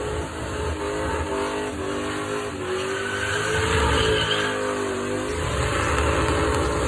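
1973 Mercury Cougar's V8 held at high revs through a burnout, the rear tyres spinning and squealing on the pavement. The engine pitch climbs and falls back again a few seconds in.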